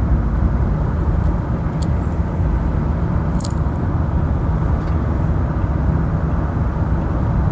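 Steady low rumble of a car on the move, a taxi heard from inside, with a couple of faint clicks about two and three and a half seconds in.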